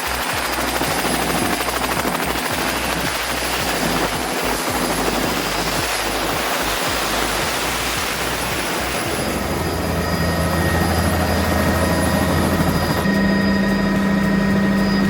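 Loud steady rush of a tour helicopter's rotor and engine. About nine seconds in it gives way to a steadier low hum with several held tones.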